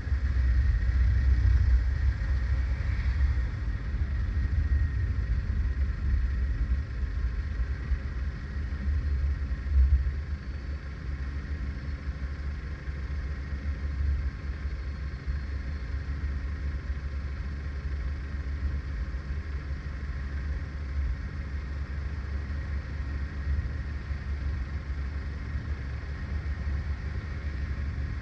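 Low rumble of a car driving in city traffic, dropping to a quieter, steady rumble about ten seconds in as the car comes to a stop and waits in traffic.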